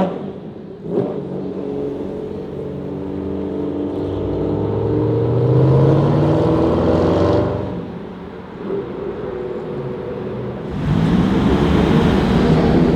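Ferrari supercar engine accelerating hard, its revs cutting off abruptly at the start and again about seven and a half seconds in, each lift-off followed by a single sharp pop from the exhaust. The engine comes back in loudly about eleven seconds in.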